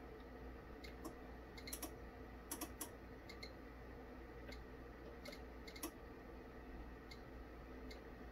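Scattered light clicks at irregular spacing from a KORAD KA3305D bench power supply as its voltage knob is turned. They are the supply's internal relays switching off and on, tapping the transformer at about 6, 11.5 and 22.5 volts, over a faint steady low hum.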